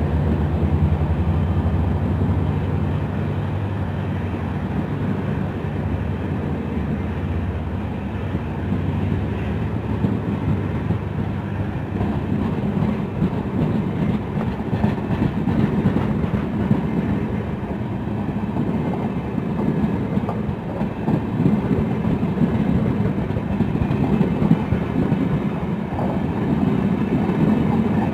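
Diesel-hauled passenger train running on the rails, a continuous rumble. The EMD locomotive's steady engine drone fades out within the first couple of seconds, leaving the noise of the rolling coaches.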